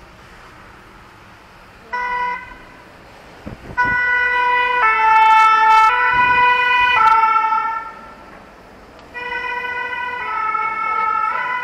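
Two-tone emergency-vehicle siren, alternating between two pitches about once a second, heard from inside a car over low road noise. A short blast comes about two seconds in, then it sounds for about four seconds, stops, and starts again about nine seconds in.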